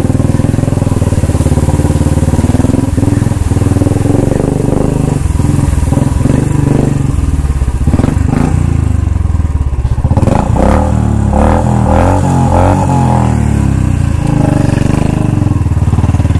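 Royal Enfield Bullet single-cylinder motorcycle engine running, with its note rising and changing about ten seconds in.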